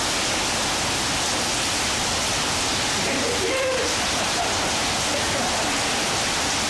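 Heavy rain falling steadily, a dense, even hiss of rainfall.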